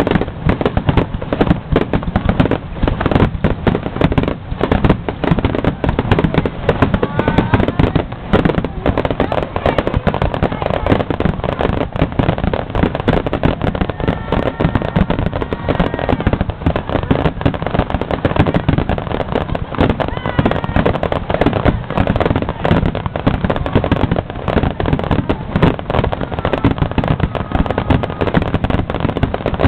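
Aerial fireworks in a dense, continuous barrage: shell bursts and crackle following one another without pause, as in a finale volley.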